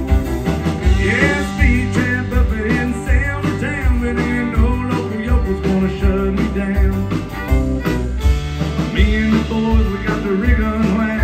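Live country band playing an instrumental passage with no lead vocal: fiddle, acoustic and electric guitars, electric bass and drums over a steady beat.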